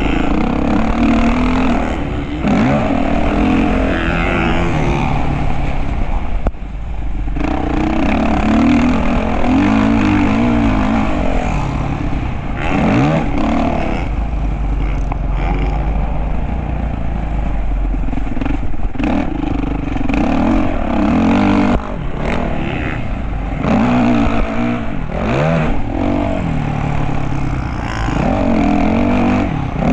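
Motocross dirt bike engine being ridden hard, its pitch climbing and falling over and over as the throttle is opened and closed. It briefly drops off about six and a half seconds in and again around twenty-two seconds, over a steady low rumble.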